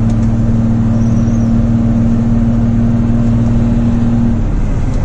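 Truck engine droning steadily, heard from inside the cab while driving. About four and a half seconds in, the engine note drops to a lower pitch as the revs fall.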